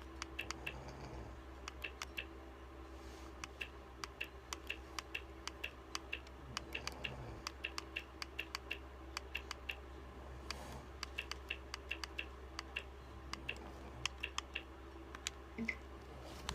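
A run of quick, light clicks, several a second and unevenly spaced, like typing, over a steady low hum.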